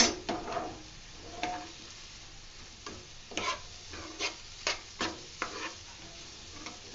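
A steel spoon stirring and scraping mutton pieces, onions and spice powders around a non-stick frying pan, in about a dozen irregular scrapes and clinks, over a faint sizzle of frying.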